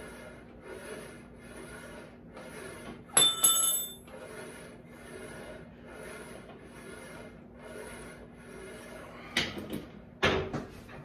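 Home multi-gym cable machine in use: one sharp metal clank with a ringing tone about three seconds in, as from the weight stack plates knocking together, then two heavier knocks and scrapes near the end as the set finishes.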